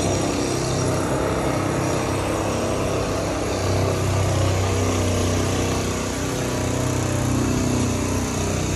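City street traffic: engines running and vehicles passing on the road, a steady dense rumble with a low engine hum that swells a few seconds in.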